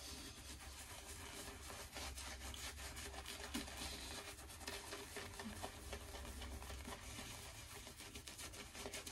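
Synthetic-knot shaving brush swirled over five days of stubble, face-lathering shaving soap: a faint, continuous bristly rubbing with many small crackles.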